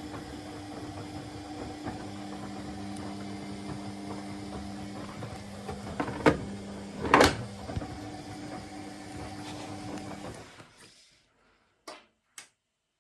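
Candy Aquamatic 100F washing machine running with a steady mechanical hum, two sharp clicks partway through. The hum stops about ten seconds in, and two short clicks follow.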